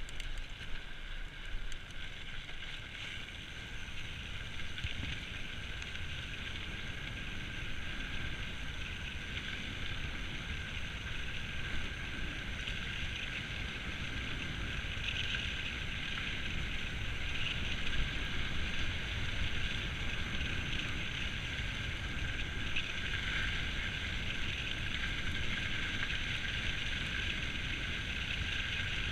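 Mountain bike descending a dirt trail: wind buffeting the microphone and the tyres rumbling over the ground, with a steady high-pitched buzz over it.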